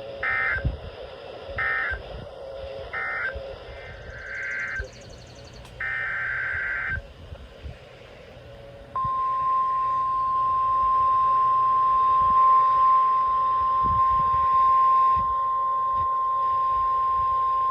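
Emergency Alert System SAME data bursts: a string of short, buzzing, two-tone digital bursts over the first seven seconds, closing one weather radio alert and opening the next. About nine seconds in, the NOAA Weather Radio 1050 Hz alert tone starts and holds as a steady single tone to the end.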